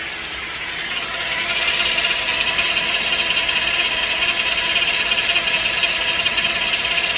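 Chevy Traverse engine idling, with a steady high whine that grows louder about a second in and a small rattle from one side. The owner suspects bad bearings in the power steering pump or the water pump.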